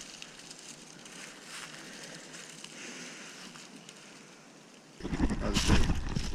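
Faint outdoor background with light rustling, then about five seconds in a sudden loud rumbling noise on the microphone, with a few sharp clicks, as the camera is brought down close to the crab pot.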